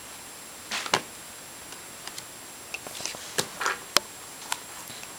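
A baby's hands patting and handling cardboard board books: a handful of short, sharp taps and brief scuffs at irregular moments, over quiet room tone.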